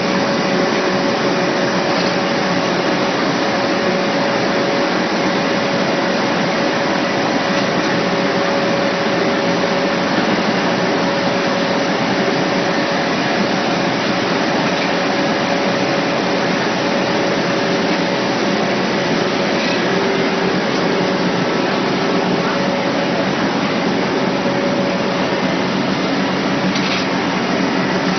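Cotton baling machine running, a loud, steady machine noise with a constant hum.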